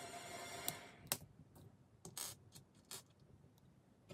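Background music stops about a second in, followed by a few light clicks and taps of small plastic model-kit parts being handled and set down on a desk.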